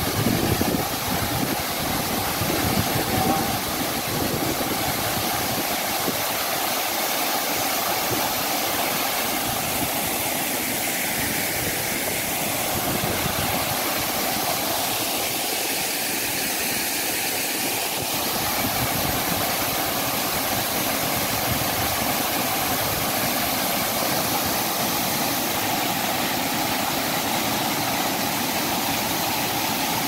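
Waterfall pouring into a pool close by: a steady, even rush of falling water.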